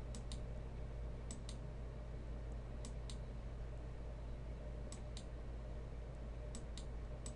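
Computer mouse button clicks, in pairs about a quarter second apart, repeating every one and a half to two seconds, over a faint steady low hum.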